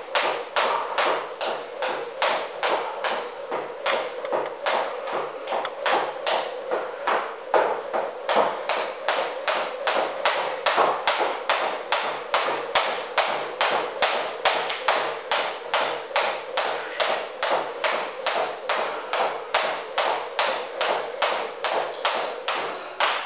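Skipping rope slapping a wooden floor on each turn, with the jumper's light landings, in a steady rhythm of about two strikes a second. A short high electronic beep sounds near the end.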